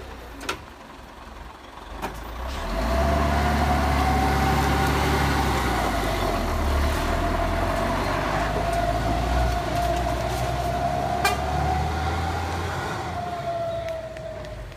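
Diesel engine of a heavy truck loaded with steel rebar working hard on a steep dirt climb. It grows loud about three seconds in and eases off near the end, with a steady whine over it that rises slightly and falls back, and a few sharp clicks.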